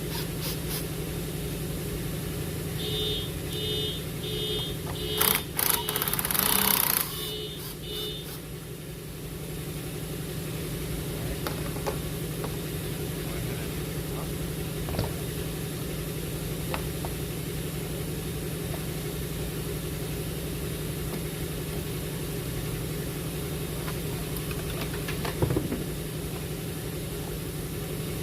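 Hand tools working on 10mm hose clamp bolts under a car's hood: scattered clicks and a loud clatter, over a steady low machine hum. A short pitched beep repeats about twice a second for around five seconds near the start.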